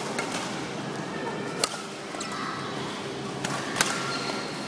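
Badminton rally: rackets striking the shuttlecock, two sharp hits about two seconds apart, with fainter taps between them.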